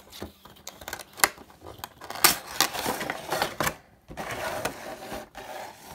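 A cardboard collectible box being opened and its clear plastic display tray slid out and handled: a run of sharp clicks and crinkling plastic, busiest about two to four seconds in.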